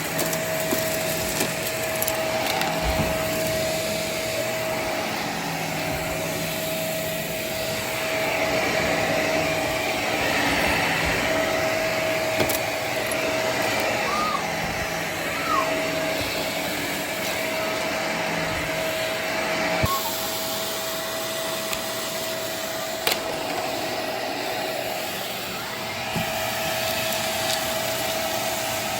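Vacuum cleaner running steadily with a motor whine, with a few knocks as it is pushed around.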